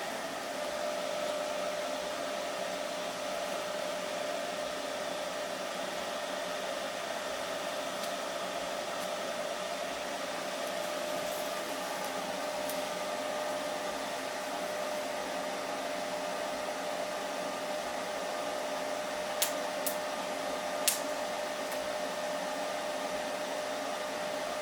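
A motor-driven machine running steadily, a constant hum with hiss, with a few sharp clicks near the end.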